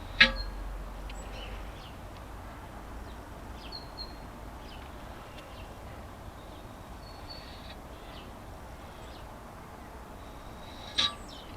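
Short, scattered bird chirps over steady outdoor background noise. A sharp click sounds just after the start, and another short, louder sound comes near the end.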